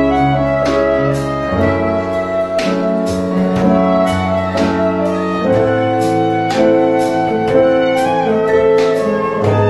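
Instrumental music: a held melody over chords and a bass line that changes every second or two, with notes struck at a steady beat about twice a second.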